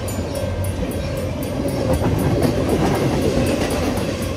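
Double-stack intermodal container cars of a CN freight train rolling past at speed, steel wheels running over the rails in a steady loud rumble that swells slightly midway.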